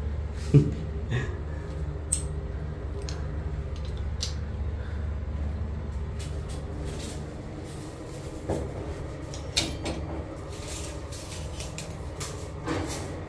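Scattered light knocks and clicks of hand tools and wall fixings being handled, about eight in all, with a louder thump about half a second in, over a steady low hum.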